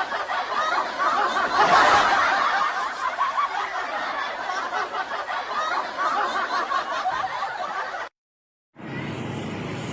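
People laughing, cutting off abruptly about eight seconds in.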